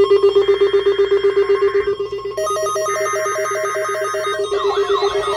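Emergency Alert System alert tones: a loud, rapidly pulsing electronic tone runs throughout, with buzzy digital data bursts coming in about a second at a time. About halfway through, a fast beeping joins, and near the end warbling tones sweep up and down.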